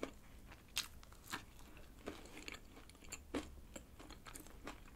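Someone chewing a twigim soboro, a deep-fried streusel bun filled with red bean paste: its crisp crumb coating gives faint, irregular crunches.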